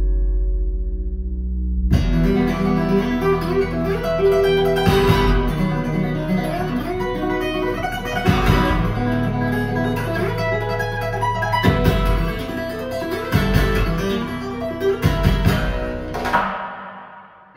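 Guitar-led music played back through KEF LS60 Wireless speakers: a held low bass note, then about two seconds in the full band with drums comes in. The track drops away near the end.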